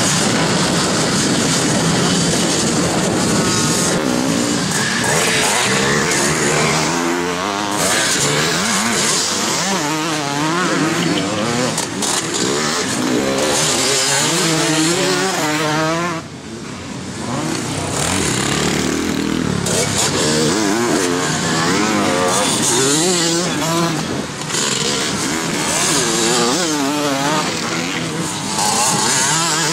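Several vintage twin-shock motocross bikes racing, their engines revving up and backing off over and over as the riders accelerate, jump and brake, so the pitch keeps climbing and falling. The sound drops briefly about halfway through, then the engines pick up again.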